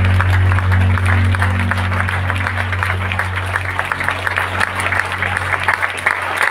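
Audience applauding with dense, steady clapping, while the last deep bass note of the song fades out.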